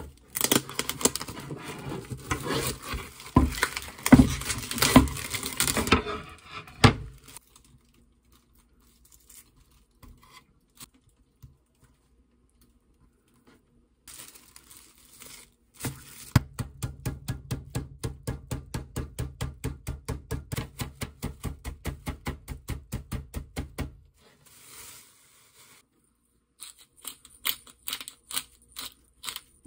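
Plastic meat packaging torn open and crinkled for several seconds. Later comes an even run of rapid taps on a wooden cutting board, about five a second for some eight seconds, as a pork cutlet is beaten thin. Near the end a hand pepper grinder clicks.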